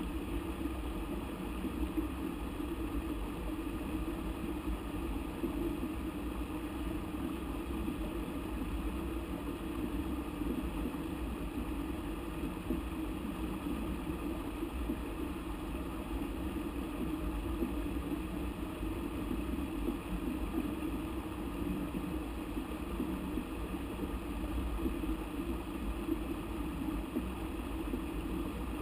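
Steady, muffled rushing of river water.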